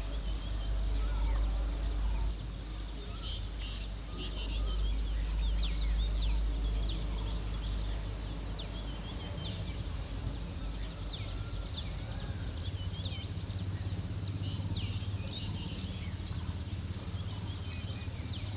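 Many small birds chirping at once, a dense run of short, quick, high chirps, over a low rumble that is louder in the first few seconds.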